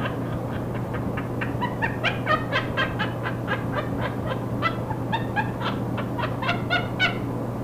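Monk (Quaker) parakeet laughing: a rapid run of short, squawky 'ha' calls, about four a second, that stops about seven seconds in. A steady low hum and static hiss run under it.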